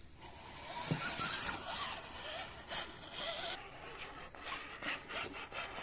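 Electric motor and gears of an RC rock crawler whirring in short bursts that rise and fall in pitch, with clicks and scrapes as it crawls over stones.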